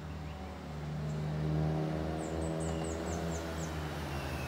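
Engines of passing road traffic, a steady engine note that swells about a second in as vehicles come near, with a fully faired touring motorcycle approaching near the end. A bird gives a run of about seven quick high chirps in the middle.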